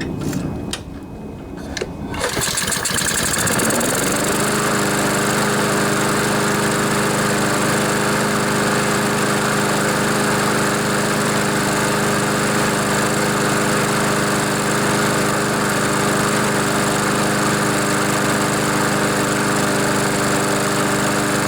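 Honda GCV single-cylinder overhead-cam lawnmower engine being started on choke: it catches about two seconds in, revs up and then runs at a steady governed speed, winding down right at the end. The engine runs well once the oil-soaked air filter, caused by tipping the mower the wrong way, is dealt with.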